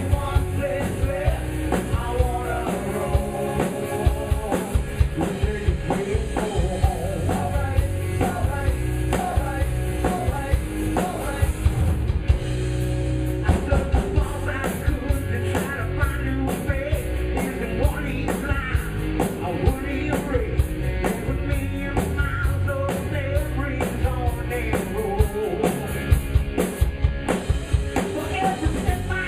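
A rock band playing live at a sound check: drum kit, bass and guitars with a lead voice singing, steady and loud with no break.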